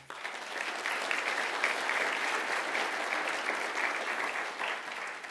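Audience applauding: dense clapping that starts all at once and dies away near the end.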